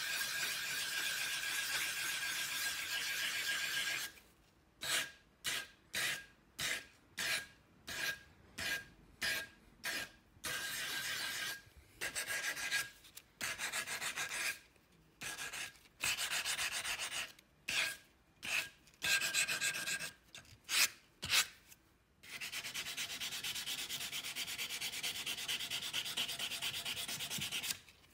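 Hand sanding a metal nail setter held in a bench vise with an abrasive sanding pad, making a dry scratching rub. It goes steadily at first, then in short separate strokes about one a second, and turns to steady rubbing again for the last several seconds.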